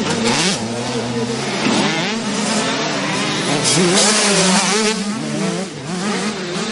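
Several motocross dirt bikes racing past at close range, their engines revving up and down with the throttle, the pitches of more than one engine rising and falling over each other.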